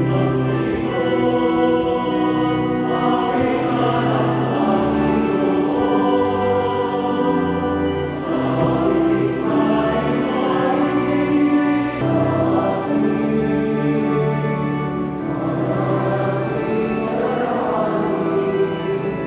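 Church choir singing a hymn in long held notes, with instrumental accompaniment, in the church's echoing interior.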